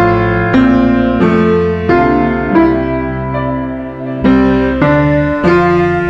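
Background music: a slow piano melody of held notes, a new note struck about every half second to second.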